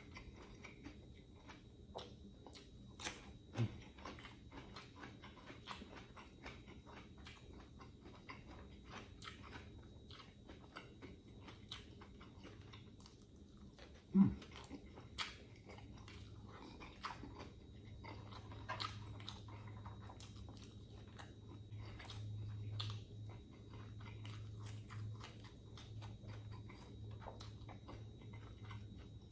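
Close-up chewing and crunching of food, a dense run of small crisp clicks from bites of fresh vegetables such as lettuce and cucumber with chicken and rice. A single louder knock comes about fourteen seconds in.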